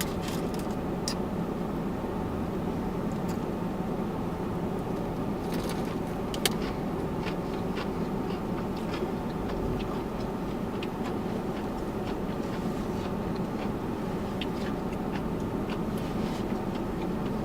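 Steady hum inside a parked car with its engine idling, with a few faint clicks and taps now and then.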